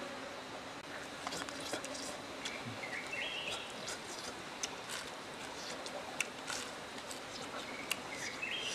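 A bird calls twice, each call a short run of notes stepping upward in pitch, over steady outdoor background noise. Small clicks and crackles of grilled chicken being torn and chewed come and go throughout.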